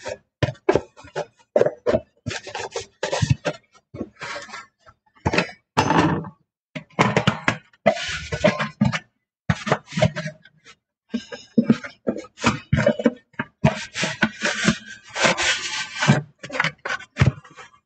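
Clear plastic food containers and lids being hand-dried with a cloth towel: irregular rubbing of cloth on plastic and light clattering of the plastic.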